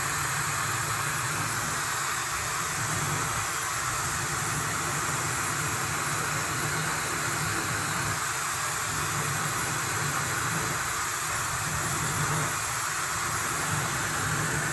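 Laifen hair dryer blowing hot air onto wet hair, a steady rush of air with no change in speed, switched off at the very end.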